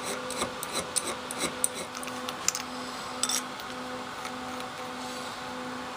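Short metallic scrapes and clicks of a hand file on a steel auger bit, stopping about three and a half seconds in, leaving a faint low steady hum.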